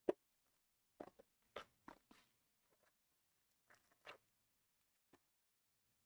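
Trading cards and card packaging being handled: short scattered rustles and clicks, the sharpest right at the start, a cluster about one to two seconds in and a couple more about four seconds in, with near silence between.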